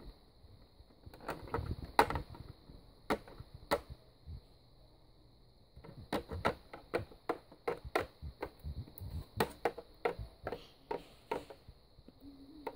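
Small plastic toy figures and a hand tapping and clattering against a plastic toy house: scattered light clicks and knocks, thickening into quick runs of clicks in the second half.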